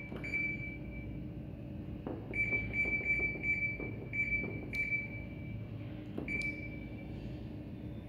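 Haier top-load washing machine control panel beeping as its buttons are pressed: one beep near the start, a run of about six quick beeps from about two seconds in, and one more just after six seconds. Two sharp clicks come among the later beeps.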